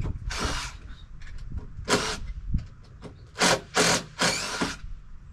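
Carpentry tool work on a wooden deck frame: about five short, hissing bursts of noise, the last three coming quickly one after another.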